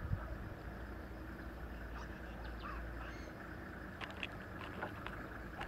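Outdoor ambience: a steady low rumble with scattered short, faint high chirps and clicks.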